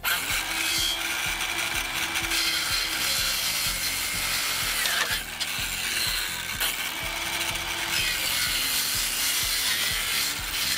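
Cordless circular saw running steadily as it cuts through a wooden board.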